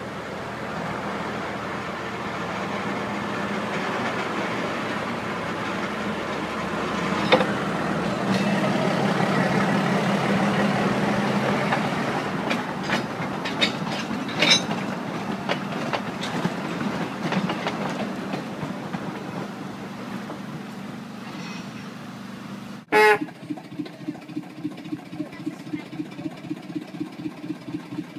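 Narrow-gauge diesel locomotive running along the track, its engine noise swelling with scattered sharp clicks and rattles from the running gear. About 23 seconds in, the sound cuts abruptly to a diesel engine idling with a slow, even beat of about three pulses a second.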